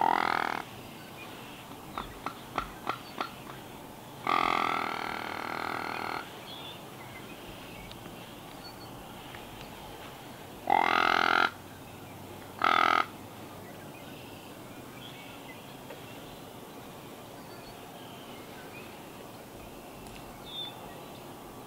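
Deer grunt tube call blown in four separate calls: a short one at the start, a longer two-second call about four seconds in, and two short ones around eleven and thirteen seconds. Five sharp clicks come quickly one after another about two seconds in.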